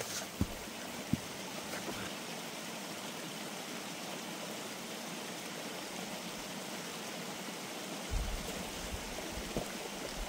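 Small mountain creek running over rocks: a steady, even rush of water. A few low thumps come in near the end.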